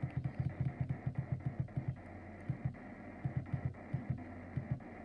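Sangean HDR-15 clock radio's speaker giving AM static and buzz as it is tuned up the band one channel at a time. The sound drops out briefly at each step, about three times a second, with the steps spacing out a little toward the end.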